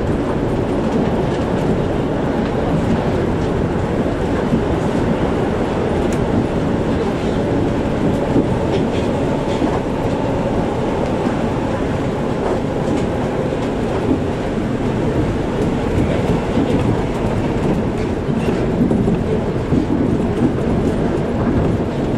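Shonan Monorail suspended-monorail car running at speed, heard from inside the car. A steady rumble from its rubber-tyred running gear holds at an even level.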